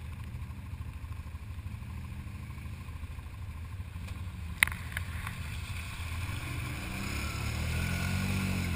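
ATV engine running at low revs with a steady low rumble, and a single sharp click about halfway through. Near the end an engine note grows louder and rises in pitch as it revs up.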